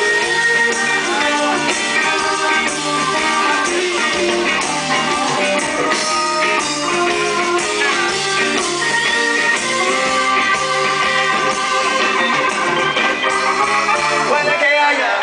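Live rock band playing an instrumental passage: electric guitar melody over bass, drum kit and congas, heard loud and steady from the audience.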